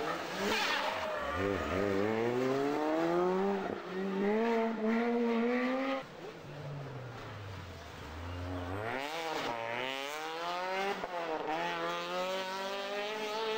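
Rally car engines accelerating hard through the gears. The first car revs up with quick upshifts. After a cut about six seconds in, a second car's engine note drops, then climbs again through several upshifts.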